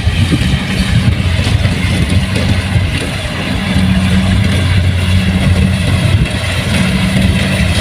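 Kubota combine harvester's diesel engine running with a steady low drone, under the clatter of the working machinery.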